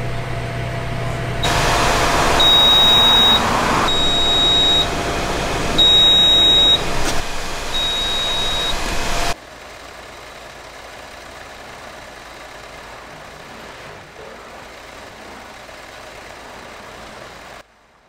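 A car air-conditioning service machine runs a flushing cycle with a loud rushing noise and a high beep that sounds four times, about a second each and about two seconds apart. It cuts off suddenly, leaving a quieter steady running sound from the car with its engine idling.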